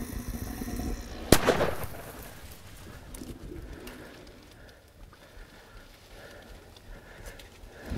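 A single hunting rifle shot about a second in, sharp and loud with a brief echo trailing off. It is a follow-up shot at a wounded elephant that is down but not yet dead.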